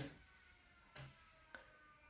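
Near silence: room tone, with a brief faint low sound about a second in and a faint click soon after.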